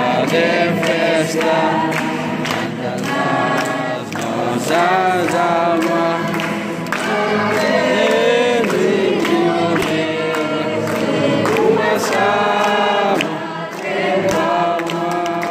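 A group of voices singing a song together in chorus, over a steady beat.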